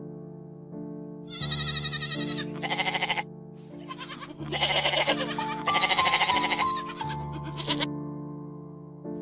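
Goats bleating: a run of five or six wavering calls, one after another, from about a second in until near the end. Soft piano background music plays under them.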